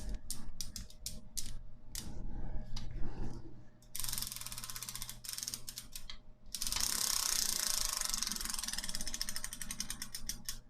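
Bicycle rear-wheel freewheel ratcheting: a few slow clicks as the wheel is turned, then two spins with a fast run of pawl clicks that slows toward the end as the wheel coasts down. The even ticking shows the freewheel working properly.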